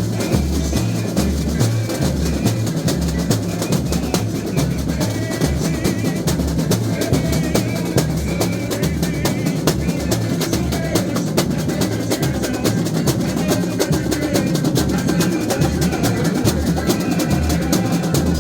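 Samba school bateria playing a steady samba rhythm: surdo bass drums keep a regular low pulse under dense, continuous snare drums and small percussion.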